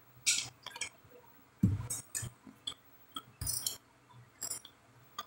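A string of short drinking and eating noises: swallows from a plastic water bottle, then a metal fork clinking and scraping on a glass plate as it picks up raw cabbage salad.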